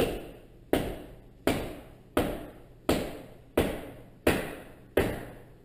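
Mallet blows at a steady pace, about three every two seconds, each with a short fading ring, driving a frozen chum log out of a PVC pipe. The log is not yet moving.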